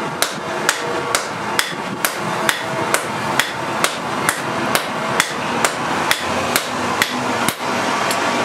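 Hand hammer striking a red-hot steel axe blank on a post anvil in an even rhythm of a little over two blows a second; the blows stop shortly before the end. A steady background noise runs underneath.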